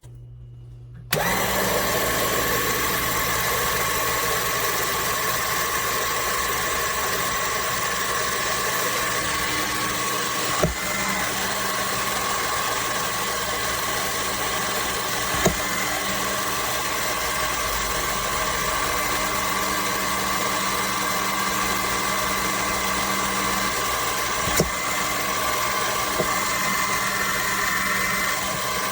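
A motor running steadily with a constant whine, broken by a few faint clicks.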